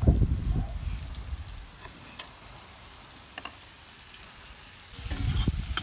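Kitchen knife chopping dried apricots on a wooden cutting board: dull knocks in the first second, then a few light taps. About five seconds in, meat, onion and carrot frying in a kazan start to sizzle loudly.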